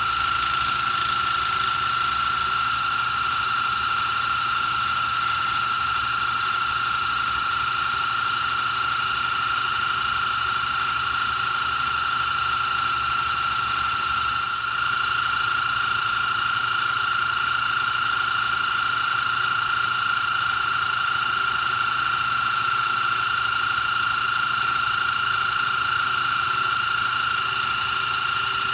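Electric scroll saw running steadily with a high, even whine as its fine blade cuts through a piece of rosewood burl.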